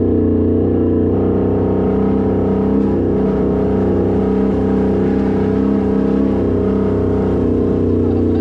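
Can-Am Renegade XMR 1000 ATV's V-twin engine running at a steady throttle, its pitch nearly constant with a slight waver in the middle.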